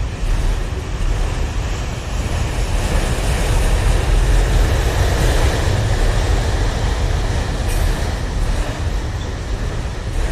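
Freight train rolling past, its steel wheels running on the rails in a continuous rumble that swells a few seconds in.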